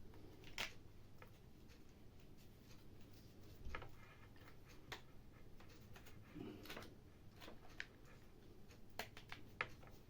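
Faint, scattered clicks and taps from small parts being handled while a trigger switch is fitted back into an opened hammer drill's handle.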